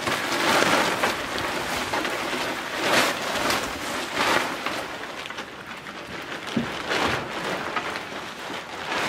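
Nylon tent fabric and a plastic bag rustling and crinkling as the tent is unpacked and spread out, in uneven swells.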